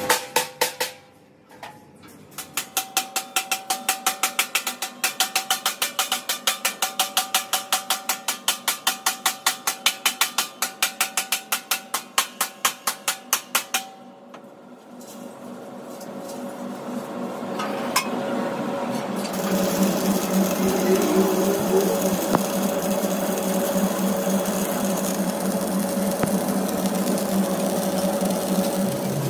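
Hammer struck rapidly and evenly against a steel air-compressor tank, several ringing blows a second, stopping about halfway through. A little after, an electric arc welder starts on the tank and runs on with a steady crackling buzz.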